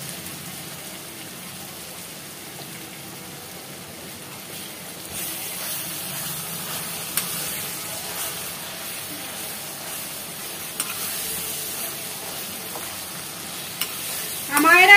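Tomato-onion masala sizzling in oil in a non-stick kadai while a slotted spatula stirs and presses it, with scrapes and a few light taps of the spatula. The sizzle grows louder about five seconds in, and a short rising squeal sounds near the end.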